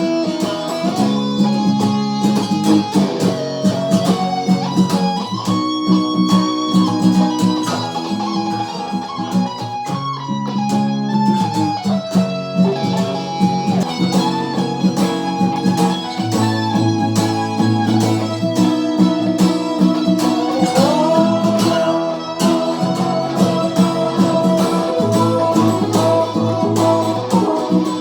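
Guitar jam: plucked guitar playing a melodic line over held low chord tones, with a few notes sliding up in pitch, one near the start and one about three quarters of the way through.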